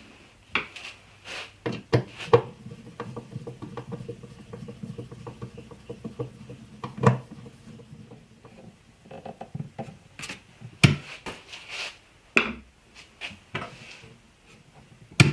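Knocks, clicks and clatter of wooden cabinet parts and hardware being handled and fitted during assembly, with a steady low hum through the first half.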